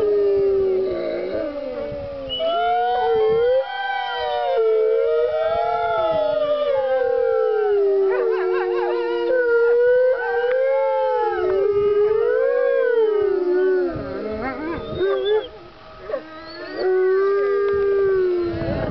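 A pack of gray wolves howling in chorus: several long, wavering howls overlap at different pitches, with quicker, broken calls mixed in around the middle. The chorus thins about fifteen seconds in, and one wolf holds a last long, steady howl near the end.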